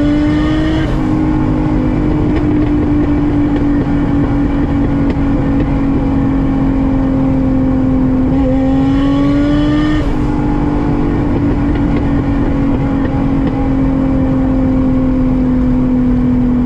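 Toyota Mark II (JZX110) engine heard from inside the cabin on the move. It climbs in pitch and drops sharply at an upshift about a second in, then holds steady. It climbs again and shifts up once more near ten seconds in, then slowly eases off.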